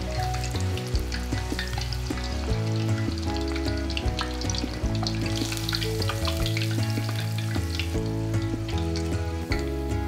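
Panko-coated chicken cheese katsu deep-frying in hot oil, a steady crackling sizzle, with background music underneath.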